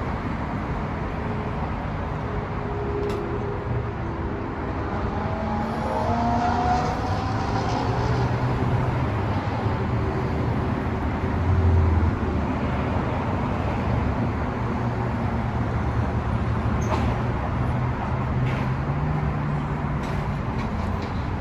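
Steady car and road traffic noise, with engine tones that waver and shift through the middle.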